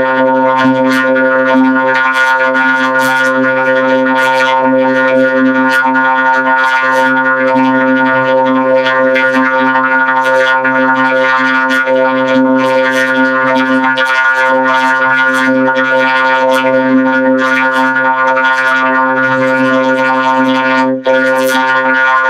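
Loud electronic, synthesizer-like drone held on one low pitch with a dense stack of overtones, flecked with quick clicks. It drops out for a moment about a second before the end.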